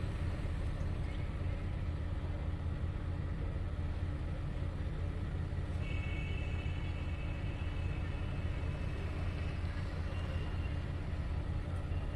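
Steady low rumble of a car's engine idling, heard from inside the stationary car, with a faint high tone for a few seconds midway.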